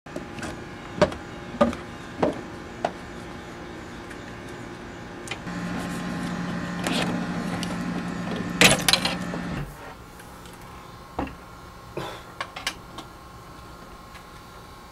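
A metal door latch worked by hand: a run of sharp clicks and knocks, loudest in a quick cluster about nine seconds in. A steady hum runs under it for a few seconds and cuts off just after the loudest knocks.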